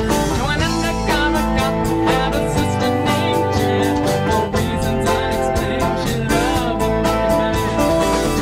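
Live band playing a rock song: guitars over a drum kit keeping a steady beat.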